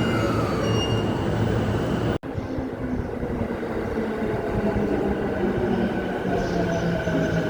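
Electric commuter train running, with rumble and noise. Partway through, the sound cuts out sharply for an instant, and after that a faint motor whine slowly rises in pitch as the train picks up speed.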